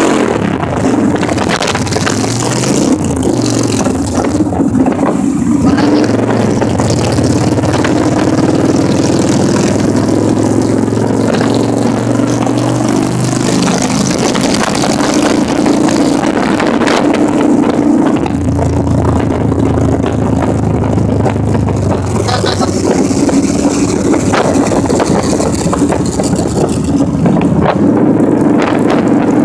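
Motorcycle engines running at road speed, the engine note stepping up and down a few times, with wind rushing over the microphone.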